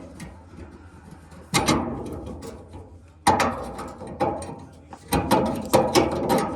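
Metal clattering and rapid clicking from hands-on work on a gas furnace's metal parts, in three loud bursts about a second and a half apart, each trailing off into rattling.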